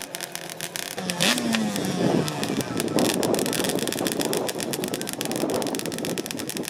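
Motorcycle engine running with a fast pulsing exhaust, revved up about a second in and then held at high revs.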